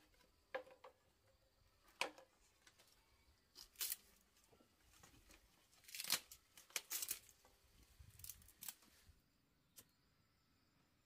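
Dry bamboo being split and snapped with a knife and by hand: irregular sharp cracks and splintering tears, most of them bunched in the middle, ending about two seconds before the close.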